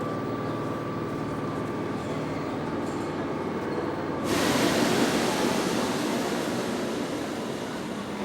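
Train at a station, rumbling steadily with a low hum. About four seconds in, a loud hiss sets in suddenly and slowly fades.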